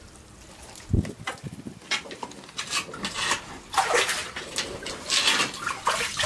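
Hand net sweeping and splashing through shallow muddy water in repeated scoops, growing louder toward the end; a dull thump about a second in.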